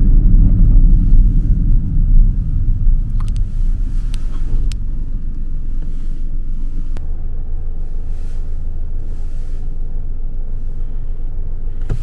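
A loud, low rumble, heavier and more uneven for the first few seconds, then settling into an even drone.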